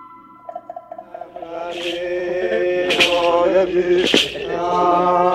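A man's voice chanting in a traditional Paiter chant, coming in about a second in and holding long wavering notes.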